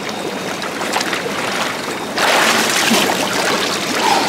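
Churning water in a cold-plunge tub as a man dunks his head, the splashing getting louder about two seconds in, with water pouring off his head near the end.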